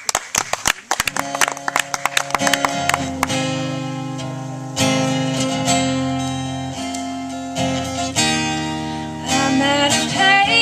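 Guitar strumming the opening chords of a pop song: quick strokes for the first few seconds, then held chords that change every second or two. A singing voice comes in near the end.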